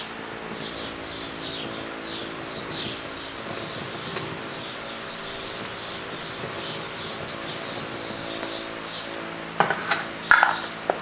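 Small birds chirping quickly and repeatedly over a steady low hum. Near the end, a few sharp knocks and a short clatter as a tin of wax is handled.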